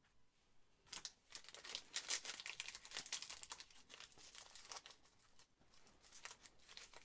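Foil wrapper of a Panini Mosaic football card pack being crinkled and torn open by hand. It starts about a second in, with dense crackling, loudest early on, and thins out over the last couple of seconds.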